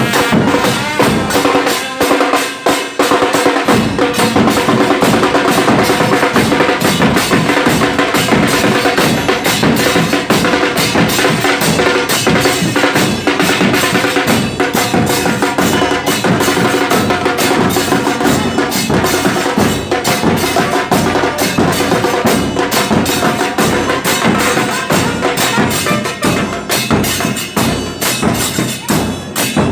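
Loud percussion music: drums beating a dense, driving rhythm with sharp wooden-sounding clicks. The low drums drop out briefly about two seconds in, then come back.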